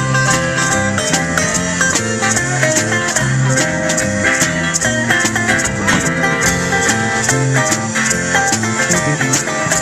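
Live band playing an instrumental break of a blues shuffle, with guitar over bass and drums keeping a steady beat.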